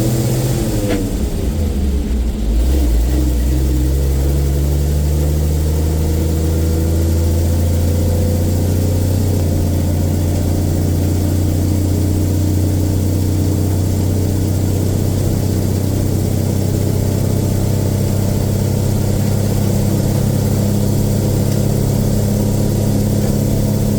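Bedford RL truck's six-cylinder petrol engine running while the truck is driven, now starting reliably after the no-start fault was worked on. Its note falls over the first couple of seconds, then settles into a steady drone.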